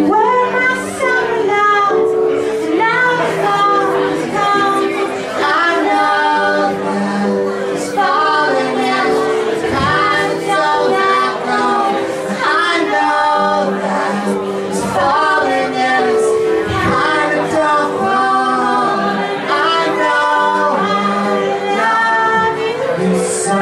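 A song performed live: a singing voice over an instrument holding long, steady chords.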